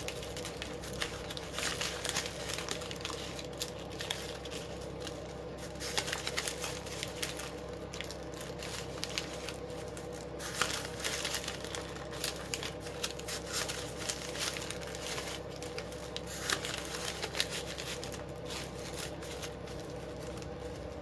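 Polypropylene (poly) ribbon crinkling and crackling irregularly as it is twisted and its loops pulled into shape to form a bow, over a faint steady hum.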